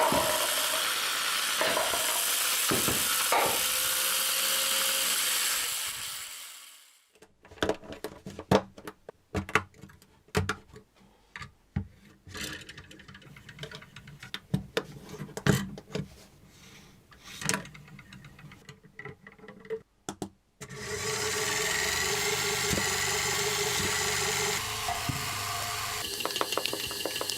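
Plastic Lego bricks being handled, clicking and tapping many times as pieces are pressed together and sorted. Before and after this, a dense steady noise starts and ends abruptly.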